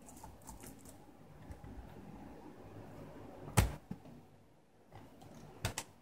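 Toshiba Satellite A665 laptop being handled, with soft rustling and one sharp plastic clack about three and a half seconds in as the lid is shut. A couple of light clicks follow near the end.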